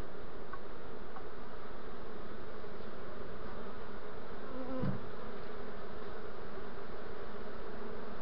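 Steady hum of a honeybee swarm, a dense mass of bees massed at the hive entrance as the swarm is run back into the hive.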